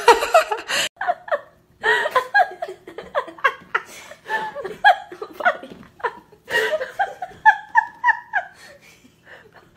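A person laughing in long runs of quick, pitched bursts, with brief pauses for breath.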